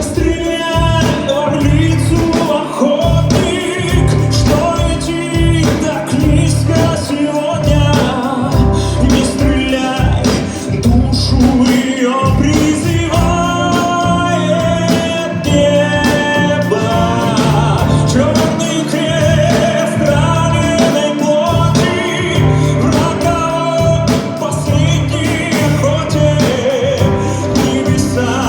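A male vocalist singing a song over a full band accompaniment with guitar.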